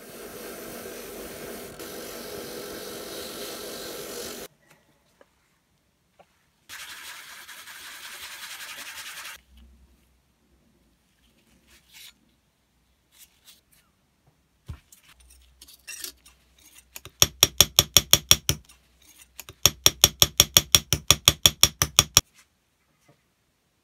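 A drill press motor runs steadily for about four seconds, and a second steady machine sound follows for nearly three seconds. Near the end a small hammer taps a thin brass nameplate on a block in two quick runs of sharp strikes, about eight a second, the loudest sounds here.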